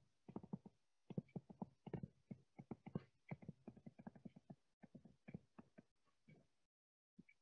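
Faint stylus tapping on a tablet while equations are handwritten: quick, irregular taps in short clusters of several a second, with brief pauses between strokes.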